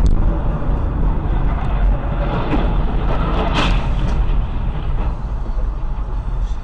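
Steady road and engine rumble heard inside a moving car on a highway. About three and a half seconds in there is a short, sharp noise as a lorry ahead crashes onto its side.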